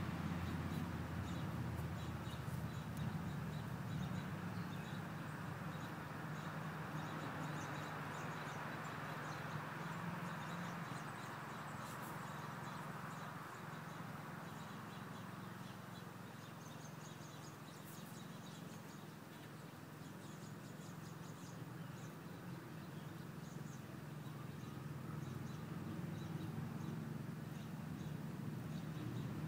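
Outdoor ambience with a steady low rumble and faint bird chirps, under the hoofbeats of a ridden horse. The hoofbeats fade as the horse moves off and grow louder again near the end as it comes back.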